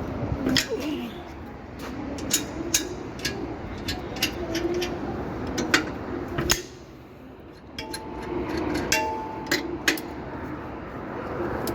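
Irregular sharp metallic clinks and knocks of hand tools and bolts being handled while a box is fitted to a tractor, over a steady background hum.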